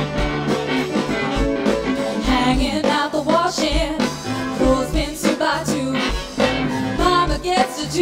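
Live band playing: a woman sings lead over electric guitar and drums, with a steady beat.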